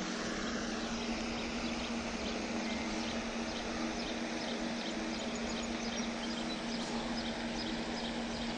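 Steady outdoor background hiss with a low steady hum under it, and faint short high chirps repeating several times a second.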